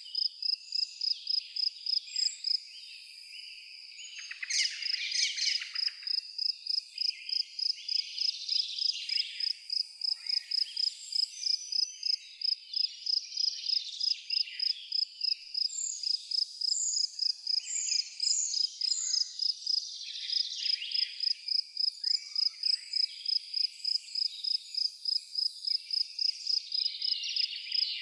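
A cricket chirping steadily in an even pulse of about three chirps a second, with a short pause about three seconds in. Birds chirp and sing over it, including a brief run of falling whistled notes around the middle.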